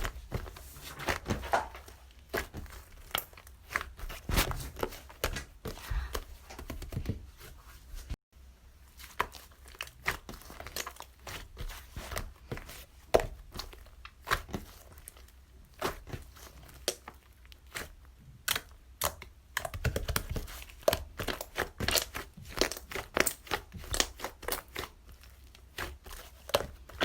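Packaging or wrapping being crinkled and torn by hand, in many short, irregular crackles, with a brief silent gap about eight seconds in.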